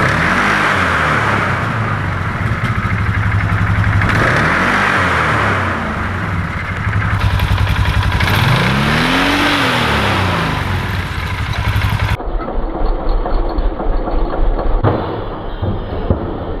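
2014 Polaris Sportsman 570's single-cylinder engine idling and revved three times, each rev rising and falling in pitch over about two seconds. About twelve seconds in the engine sound gives way to a duller, uneven clatter.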